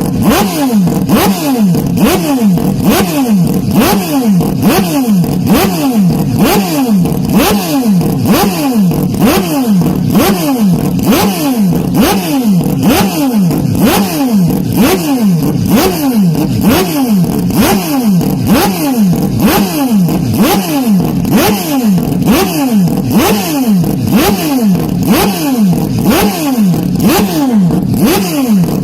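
Loud racing engine revving over and over without a break, its pitch climbing and then dropping sharply about one and a half times a second.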